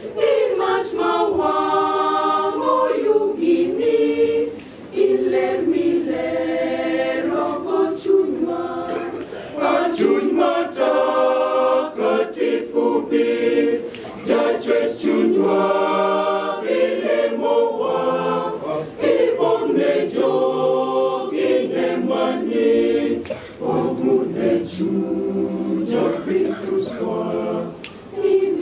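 Mixed choir of women's and men's voices singing a cappella in harmony, phrase after phrase.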